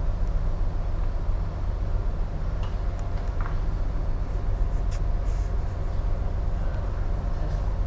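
Steady low rumble of a ship's engine and machinery under way, with a faint steady hum above it and a few light clicks.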